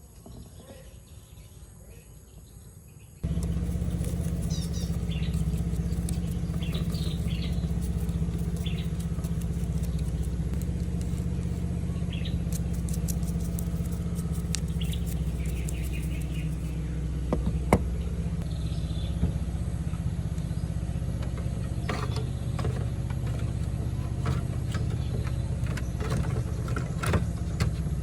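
A steady low mechanical hum, like an engine running, starts suddenly a few seconds in, with birds chirping and scattered sharp clicks over it.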